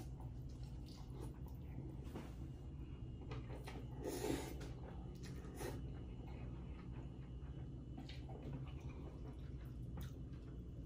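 Noodle soup being eaten: several short slurps of noodles and broth with some chewing, the loudest slurp about four seconds in, over a faint steady low hum.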